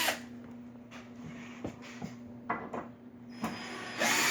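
Power drill backing drywall screws out of a frame. A short run ends just after the start, a few light knocks and clicks follow, and the drill runs again near the end.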